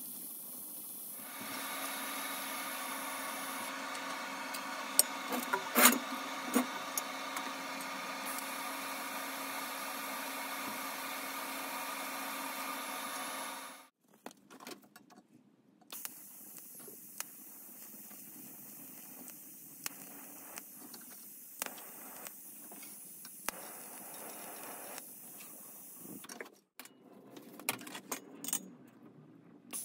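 TIG welding arc running at about 107 amps on thin subframe strengthening plates: a steady buzzing hum with hiss, broken by a few sharp clicks about five to six seconds in. The arc stops about 14 seconds in, leaving a quieter background with scattered light taps and clicks.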